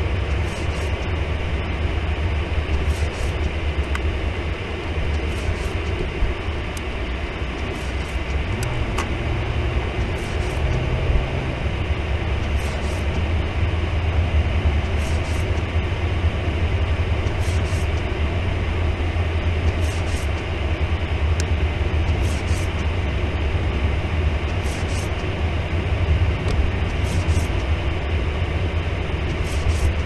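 Steady low rumble of a car's engine and tyres heard from inside the cabin, driving slowly over snow-covered road. Faint short swishes from the windshield wipers come every two seconds or so.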